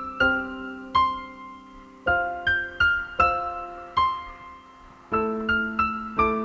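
Background piano music: single struck notes and chords, each ringing and fading before the next, about one to two a second.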